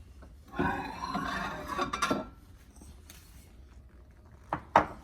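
A microwave-safe dish being handled: scraping and rattling for about two seconds, then two sharp clinks near the end as it is set down on a hard surface.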